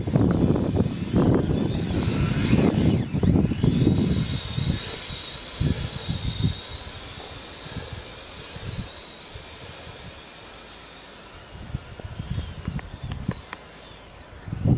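Twin brushless 2838 2800KV motors of an RC Blizzard SR snowcat, whining at a steady high pitch that dips and wavers as the throttle changes. Wind buffets the microphone for the first few seconds.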